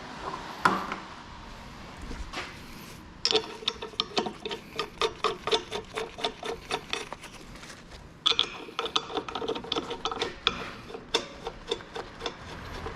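Socket ratchet clicking in two runs of quick strokes, each several seconds long, after a single sharp knock just under a second in.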